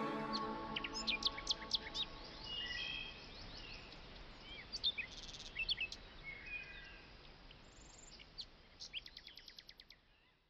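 Small birds chirping and calling, faintly, in scattered short notes that thin out and stop near the end. The last notes of music die away in the first second.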